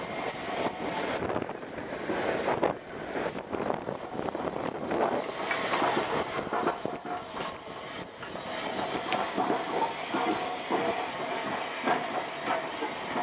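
SR Lord Nelson class 850, a four-cylinder 4-6-0 steam locomotive, moving slowly past at close range, hissing steam with irregular knocks and clatter from its wheels and running gear.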